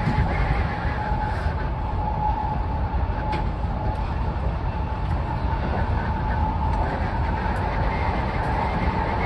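Sotetsu 20000 series electric train running along the line, heard from inside the driver's cab: a steady rumble of wheels on rail with a steady whine over it and a few faint clicks.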